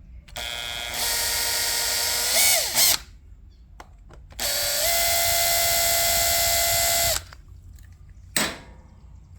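Power drill spinning, in two runs of about three seconds each, backing out the screws that hold an edger's carburetor on; the first run dips in pitch just before it stops. A short sharp knock follows near the end.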